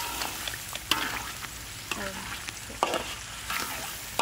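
Metal ladle stirring chili paste frying in oil in a metal wok, the paste sizzling steadily, with ringing clinks of the ladle against the pan about once a second.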